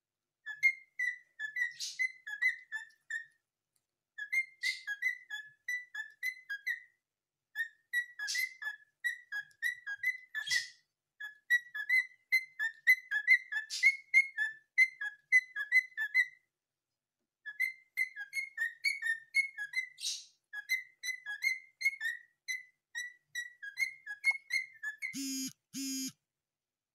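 Cockatiel tapping its beak rapidly against the rim of a ceramic bowl: runs of short, ringing clinks, several a second, in bursts of about two seconds with brief pauses. Near the end come two short, low tones.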